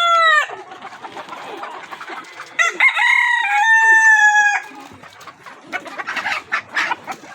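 Desi rooster crowing: the end of one crow right at the start, then a full crow of about two seconds, about three seconds in. Hens cluck and chatter after it.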